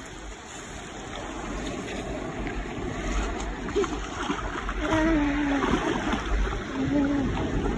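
Sea water sloshing and splashing around someone wading into the sea, over the wash of waves, growing louder as they go deeper. In the second half come a few short voiced exclamations.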